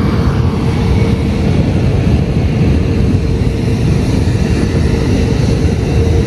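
Jet airliner engine noise at an airport runway: a loud, steady low rumble with a faint steady tone running through it, mixed with hot wind buffeting the microphone.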